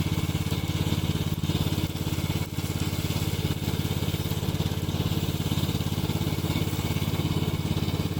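Remote-controlled lawn mower's 9 HP Loncin petrol engine running steadily, with an even, rapid firing pulse and a brief slight dip about two and a half seconds in.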